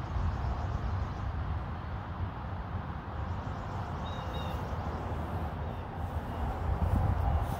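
Outdoor ambience: a steady low rumble, with a brief high bird chirp about four seconds in.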